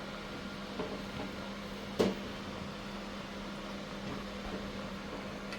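Steady mechanical hum with one sharp knock about two seconds in.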